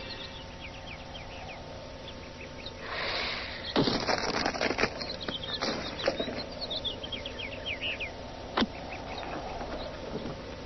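Cartoon soundtrack sound effects: many quick high chirps like birdsong, a short hiss about three seconds in, then a cluster of sharp clicks and knocks and, near the end, one more sharp click.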